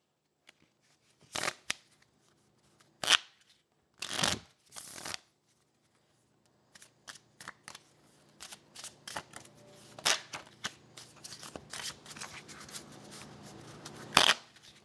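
A deck of playing cards being shuffled and handled: a few separate swipes and slaps early on, then a long run of quick flicking clicks from about seven seconds in.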